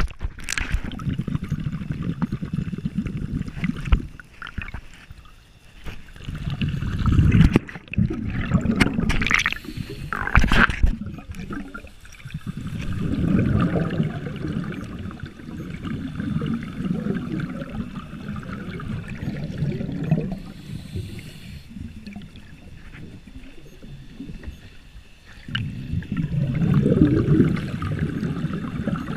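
Underwater sound of a scuba diver breathing through a regulator: low gurgling rushes of exhaled bubbles that come and go every few seconds, with a few sharper splashy bursts in the first half.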